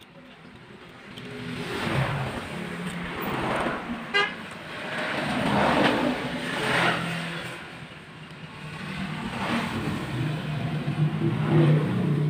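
Street traffic passing, its noise swelling and fading several times, with a brief horn toot about four seconds in.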